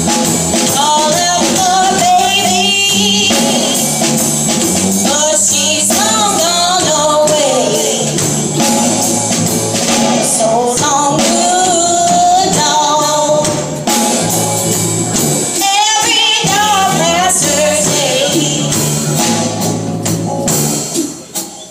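Live band playing a song: a woman singing over electric guitar and a drum kit with cymbals, winding down to its close in the last second.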